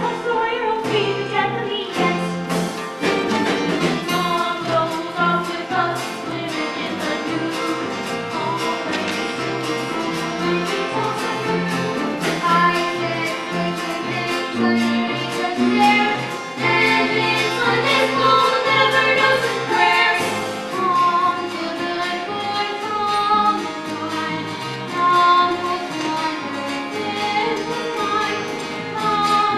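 A musical-theatre song: instrumental accompaniment with a beat, and singing voices over it.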